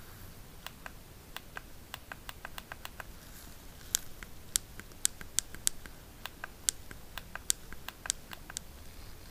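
Smartphone side buttons being pressed again and again, giving short, sharp clicks, irregular and a few a second, louder from about four seconds in.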